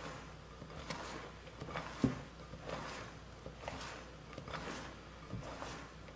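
Spatula stirring and folding thick chocolate cake batter in a glass bowl: a wet scraping swish about once a second, with a soft knock against the bowl about two seconds in.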